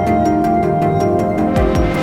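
Ambient background music with sustained synth tones, a steady ticking beat and low drum hits.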